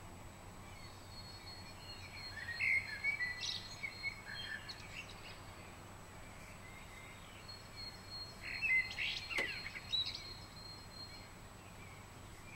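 Birds calling: two short clusters of chirping, one a few seconds in and one past the middle, with a single sharp click during the second.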